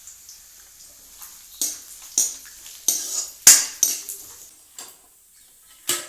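A cooking utensil stirring dry fruits and nuts frying in oil in a pan, scraping and knocking against the pan in about eight irregular strokes, the loudest a little past the middle.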